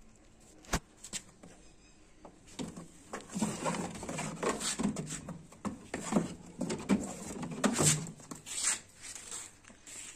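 Close rustling, tapping and scraping against the microphone as a young goat kid noses and bumps at the phone. An irregular string of knocks runs for several seconds after a single sharp click about a second in.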